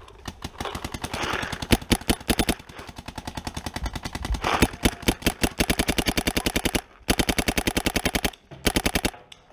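Paintball marker firing in long rapid strings, about ten shots a second, with short breaks about seven and eight and a half seconds in.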